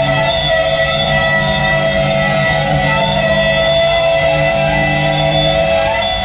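Slowly rolling flatcar wagons of a rail-laying work train, their wheels and running gear giving a steady, ringing squeal of several held tones over a low rumble. A low hum drops out near the end.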